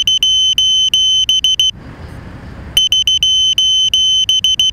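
FPV racing quadcopter's onboard buzzer beeping with the quad sitting in the grass: rapid high-pitched beeps in bursts of about a second and a half, with a pause of about a second between bursts.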